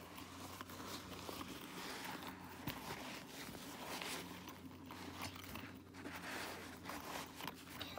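Faint handling sounds of hands rustling a fabric pouch while stuffing spiral hair ties into it, with light clicks and scrapes scattered throughout.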